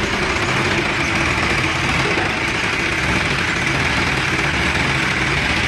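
Diesel engine of a Sonalika DI-750 III farm tractor running steadily.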